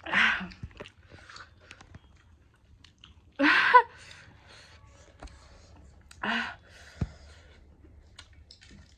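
Close-up chewing and small mouth sounds of someone eating, broken by three short, loud breathy sounds: one at the start, one about three and a half seconds in, and one just past six seconds, with a sharp click about a second later.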